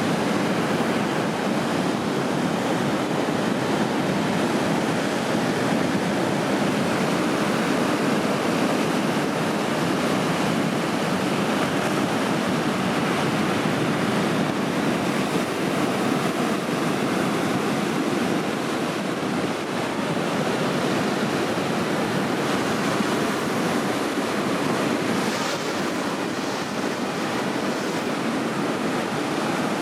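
Steady rush of large ocean waves breaking, with wind blowing on the microphone.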